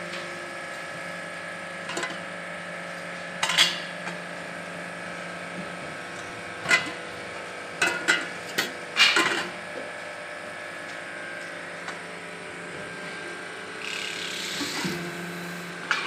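Steady hum of a hydraulic pressing machine running, with several sharp metal clanks of steel pot bodies being knocked and handled at irregular intervals, and a brief hiss near the end.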